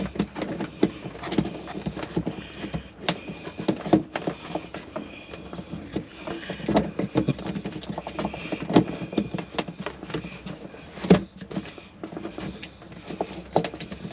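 Irregular knocks, clicks and scraping as a livewell pump motor is pushed into its base and twisted to lock in place, with one sharper knock near the end.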